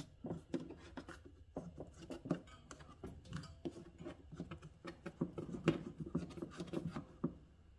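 Plastic air-filter cap being twisted and fitted back onto the side of a Fortress oil-free air compressor's pump: irregular clicks, scrapes and rubbing of plastic on plastic as it is worked into place and locks in.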